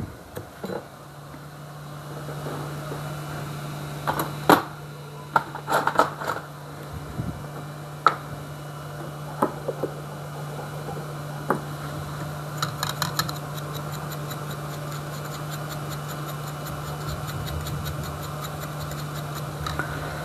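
Hot air rework station blowing with a steady hum that switches on about a second in, heating the old charging jack to lift it off the board. Scattered sharp clicks and taps sit over it, and a faint rapid ticking comes in about halfway.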